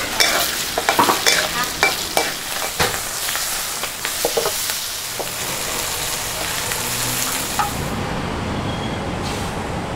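Chicken and noodles sizzling in a steel wok while a metal ladle scrapes and clanks against the pan, many sharp knocks in the first few seconds. About eight seconds in the sizzle gives way to a low street-traffic hum.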